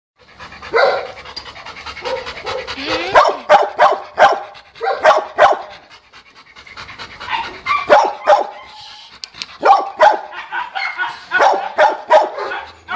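Dogs barking in runs of short, sharp barks, with a brief lull about six seconds in.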